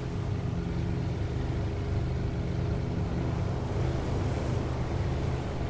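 A boat's engine running steadily with an even, low hum that holds its pitch throughout.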